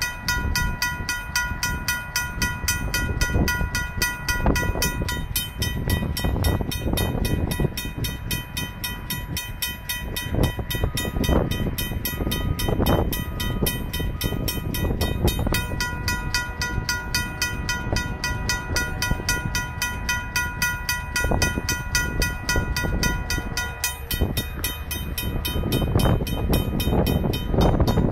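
RACO mechanical railroad crossing bell ringing continuously with rapid, even strikes, the warning that a train is approaching. A train horn sounds faintly in the distance in the middle stretch, over a gusty low rumble.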